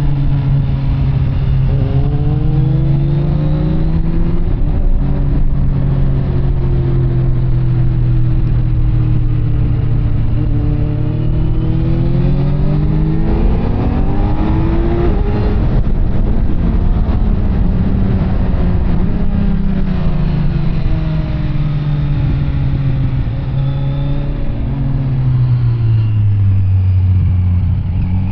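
Kawasaki Z900 inline-four through an SC Project CR-T carbon exhaust, ridden on the road: the engine note climbs under acceleration and steps down at upshifts about four seconds in and again midway, holds steady while cruising, and drops low near the end as the bike slows before pulling again.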